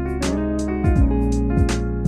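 Instrumental background music with guitar over a bass line and a steady beat.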